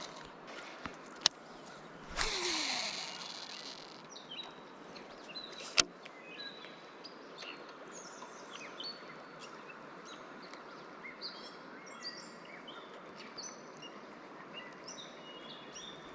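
Many small birds chirping in short high notes over a steady hiss of river water, with a whoosh about two seconds in and a sharp click near six seconds.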